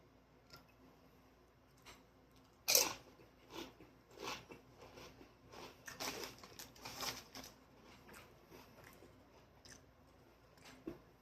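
Close-up eating sounds: bites and crunchy chewing of food, in uneven crackly bursts. The loudest bite is about three seconds in, followed by a few seconds of busier chewing.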